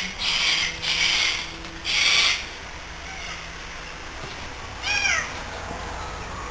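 Four short bursts of sizzling hiss in the first two and a half seconds from a Healing valve black-and-white television, over a steady low hum: high-tension (EHT) leakage arcing around the flyback or CRT anode cap. A short animal call about five seconds in.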